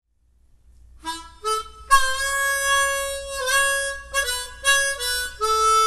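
Background music led by a harmonica, playing long held notes and chords, starting about a second in.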